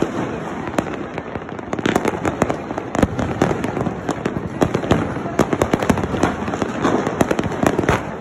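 Many fireworks and firecrackers going off at once: a dense, irregular run of bangs and pops over a continuous crackle.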